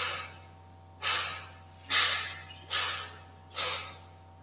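Marker pen scratching across a whiteboard while words are written: five short scratchy strokes, about one a second.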